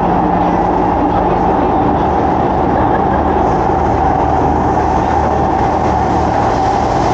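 Running noise of a Singapore MRT train heard from inside the carriage: a steady loud rumble with a constant high whine.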